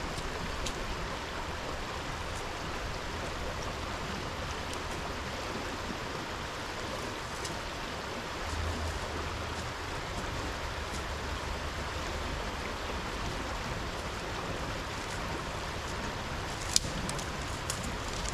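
Steady rush of flowing creek water. A low hum comes in for a few seconds midway, and near the end there is one sharp click followed by a couple of fainter ticks.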